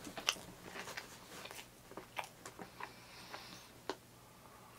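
Quiet, irregular crunches and mouth clicks of a person chewing and biting into a crispy fried chicken sandwich.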